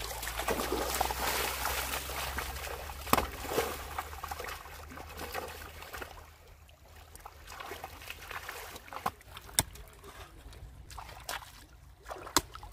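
Shallow stream water splashing and sloshing as people wade through it and set stones in it, busiest over the first few seconds, then quieter with small splashes and a few sharp knocks.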